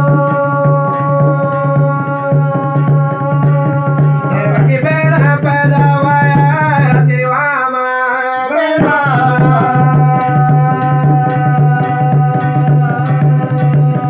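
Garhwali jagar: a man singing long, drawn-out notes over a laced double-headed hand drum beaten in a quick, steady rhythm.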